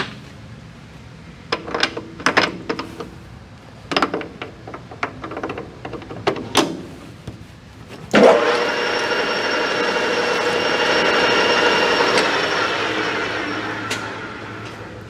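Scattered clicks and knocks, then about 8 s in the spindle of a Victor 1840 CNC lathe starts suddenly and runs with a steady whine. Near the end its pitch falls and it fades as the spindle slows.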